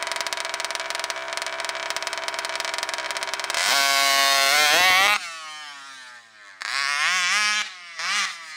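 RCMAX 80cc two-stroke engine in a 1/5-scale RC monster truck, still on its first tank of break-in fuel, idling with a fast buzzing firing rhythm. About three and a half seconds in it is revved hard, its pitch climbing, and the sound cuts off sharply. Two shorter, fainter bursts of revving with rising and falling pitch follow.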